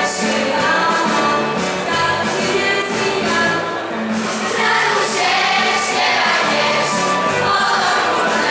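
Choir singing a Polish Christmas carol (kolęda), the voices moving through held notes.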